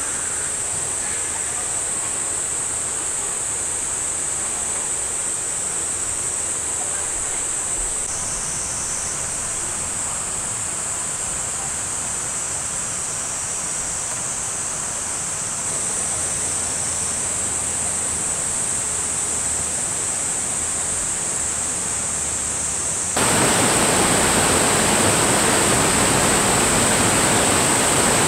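Mountain stream rushing over rocks: a steady wash of water noise with a constant high-pitched hiss above it, turning suddenly louder and fuller about three-quarters of the way through as the rapids come close.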